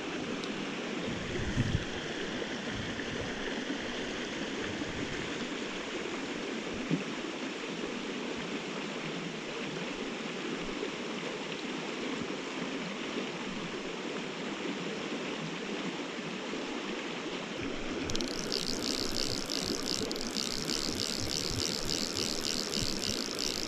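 Spring creek water flowing, a steady rushing noise. About three-quarters of the way through, a brighter, fluttering high hiss cuts in suddenly on top of it.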